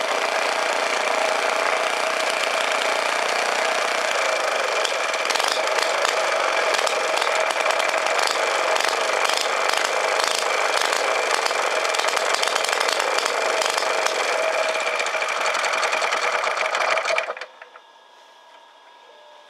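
Clinton GEM 2½ hp stationary engine running steadily, then cutting out suddenly near the end.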